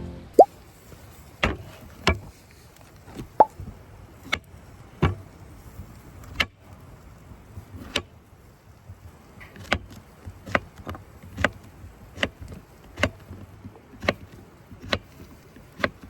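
A series of sharp taps or knocks, a few scattered at first, then regular at about one a second for the last several seconds.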